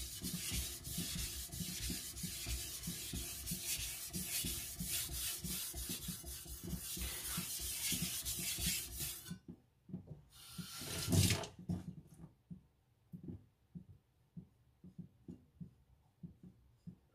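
Steel edge of a CCK Chinese cleaver being stroked back and forth on a whetstone at about 10 degrees, a dense run of scraping strokes to raise a burr. The grinding stops after about nine and a half seconds, one more short stroke follows, then a run of light ticks about two a second.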